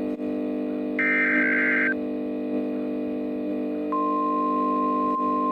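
A NOAA Weather Radio SAME alert header: a buzzy digital data burst of about a second ends near two seconds in. At about four seconds the steady 1050 Hz weather-radio warning alarm tone starts, announcing the warning to follow. A steady low drone runs underneath.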